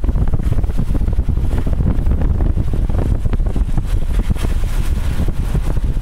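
Wind buffeting the microphone: a loud, uneven low rumble that never lets up.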